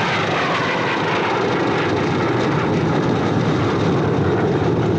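Engines of a formation of propeller-driven warplanes flying over, a loud, steady, dense noise.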